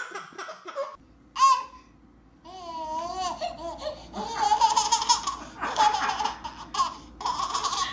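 A baby laughing: high, wavering bursts of laughter, one short squeal about a second and a half in, then a long run of near-continuous giggling from the middle to the end.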